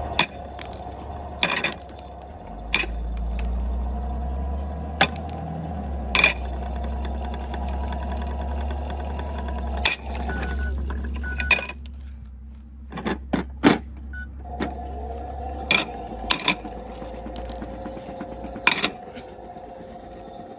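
A toy washing machine's small electric motor running with a steady hum and whir, broken by sharp clicks and knocks. The motor dies away about twelve seconds in, with a few clicks during the lull, and starts up again a couple of seconds later.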